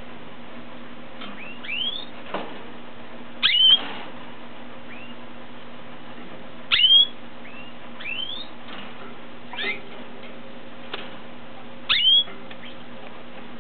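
Raza Española canary giving short, sharp chirp calls: a loud one every three to five seconds, with fainter chirps between. A steady low hum runs underneath.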